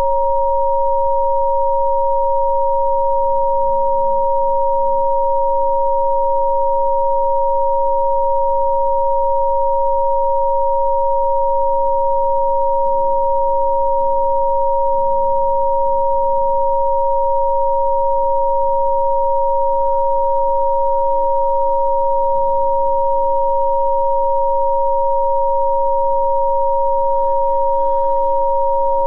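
Rife frequency-therapy tones: two steady pure sine tones, a lower and a higher one, sounding together without change. Faint, slowly shifting low notes sit underneath.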